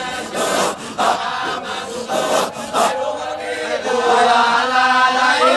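Sufi dhikr chanting by a group of voices: rhythmic raspy breathy strokes in the first half, giving way about three seconds in to sustained pitched chanting that grows louder near the end.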